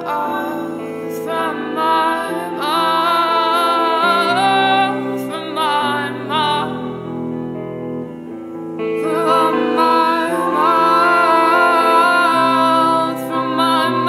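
Background music: a slow song with a wavering sung melody over held chords, the melody pausing for a couple of seconds about halfway through.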